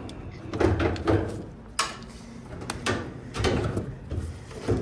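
Sheet-metal dryer cabinet parts being handled and fitted back together, giving a series of irregular knocks and clunks.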